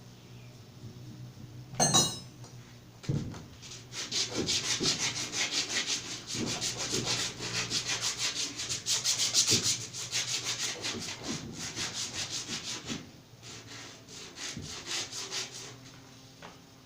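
A sharp knock about two seconds in, then quick back-and-forth scrubbing strokes brushing surface rust off the metal of a Delco-Remy 6-volt generator. The strokes grow fainter and sparser near the end.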